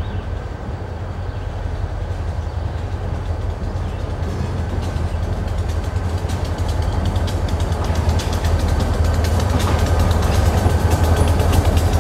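Diesel-hauled freight train approaching: a low engine rumble that grows steadily louder, with a rapid fine ticking building up over the second half.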